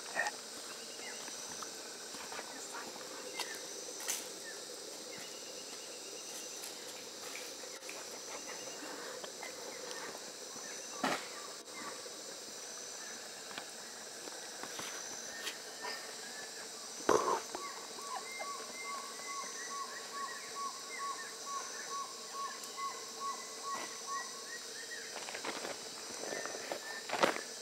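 Tropical forest ambience: a steady high drone of insects with scattered calls of several birds, one of them repeating a short note about twice a second through much of the second half. A few sharp knocks stand out, the loudest about two-thirds of the way through.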